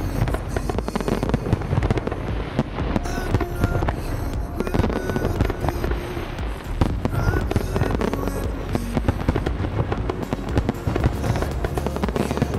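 Fireworks display going off in a dense, continuous barrage of bangs and crackles, with music playing underneath.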